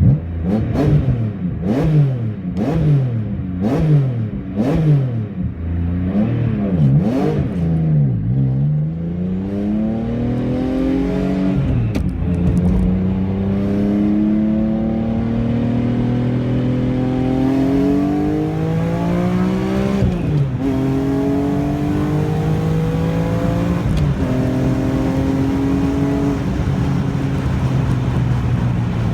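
Rebuilt BMW S54 3.2-litre inline-six in an E46 M3, with a Tilton lightweight flywheel, blipped sharply about once a second so the revs rise and fall quickly. It then pulls up through the revs with two sudden drops in pitch, like gear changes, and runs on at steadier revs.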